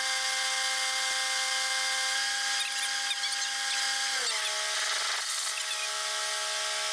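A machine running with a steady whining hum, which drops slightly in pitch a little after four seconds in.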